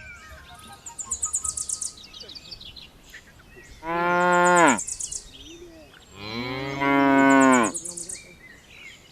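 Two long moos from a bovine animal, one about four seconds in and a longer one about six seconds in, each dropping in pitch as it ends. Short bursts of high, rapid, rhythmic chirping come between the calls.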